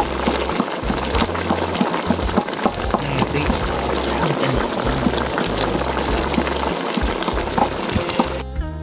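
Pot of chicken stewing at a boil, bubbling and crackling steadily, over background music with a low bass line; the sound cuts off abruptly near the end.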